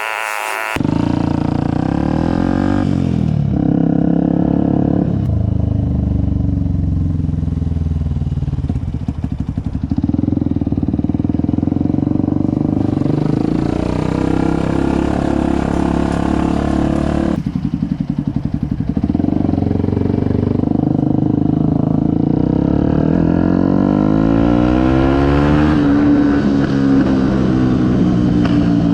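Yamaha WR 125X's single-cylinder four-stroke engine, fitted with a BlackWidow aftermarket exhaust, running and being revved, its pitch rising and falling several times.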